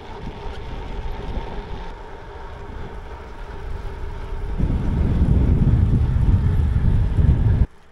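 Wind buffeting the microphone of a camera riding on a moving bicycle: a steady low rumble that grows louder about halfway through and cuts off abruptly just before the end.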